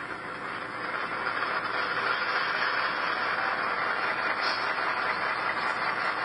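Sound-decoder EMD diesel locomotive engine sound from a Tsunami 2 decoder, played through a small iPhone 4 speaker in a model locomotive: the prime mover starting up, building over about two seconds and settling into a steady idle. The small speaker gives it a thin, tinny quality with slight distortion.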